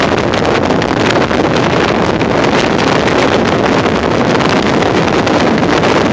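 Storm-force wind buffeting the microphone: a loud, continuous rush with constant irregular buffets.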